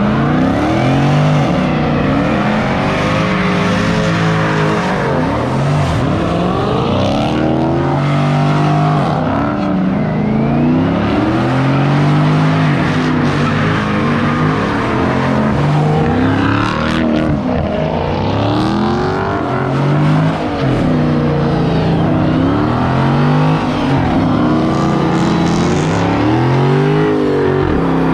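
Dodge Hemi V8 muscle car revved hard again and again, the engine pitch climbing and dropping every second or two, as in a burnout or slide.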